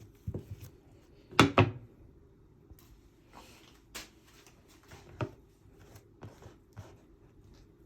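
Kitchen handling sounds: a few scattered knocks and clunks of things being moved and set down. The loudest is a double knock about a second and a half in, with lighter taps later.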